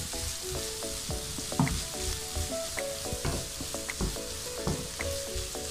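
Chopped capsicum, onion and peas sizzling as they fry in a nonstick pan, with a wooden spatula stirring them and knocking against the pan at irregular intervals.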